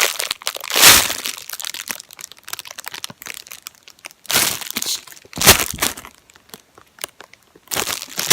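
Plastic packaging bag crinkling and rustling in irregular bursts as a squishy toy is handled in and out of it.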